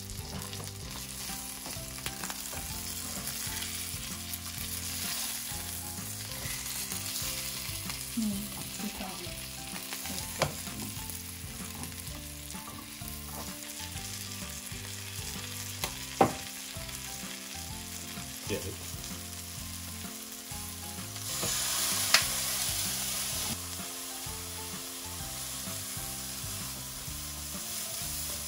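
Floured cod fillets frying in butter in a frying pan: a steady sizzle. A few sharp clicks sound through it, and the sizzling swells louder for about two seconds around two-thirds of the way through.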